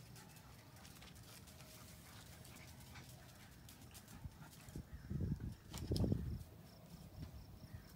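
Five-week-old Labrador puppies' claws clicking on a concrete porch as they trot about, with two loud, low, muffled thuds about five and six seconds in.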